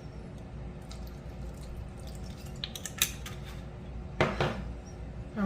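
A few light clicks and taps from handling a balsamic vinegar bottle over the salad, a small cluster about three seconds in and a slightly fuller scrape a little after four seconds, over a steady low hum.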